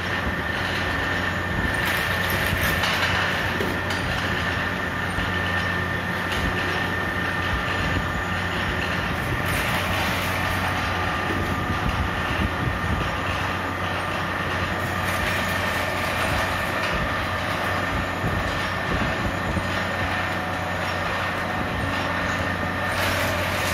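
Double-shaft chicken waste shredder running, its rotating cutter blades chewing through raw chicken pieces. The motor and gearing give a steady hum with a high whine over a dense, even clatter.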